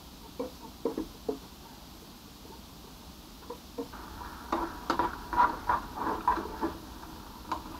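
A fork stirring and scraping fried potatoes and mushrooms in a non-stick frying pan. A few light knocks come in the first second and a half, then a busier run of scraping strokes from about four seconds in.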